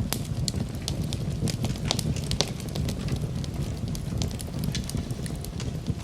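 Campfire burning, with a low steady rumble of flames and frequent irregular sharp crackles and pops from the burning wood.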